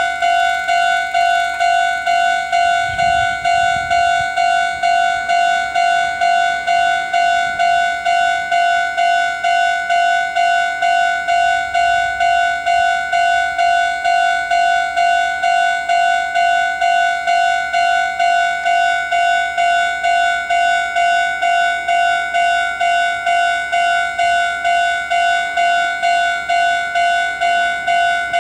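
Japanese railway level-crossing warning bell ringing steadily, one clang repeated just under twice a second, each fading before the next: the crossing is closed for an approaching train.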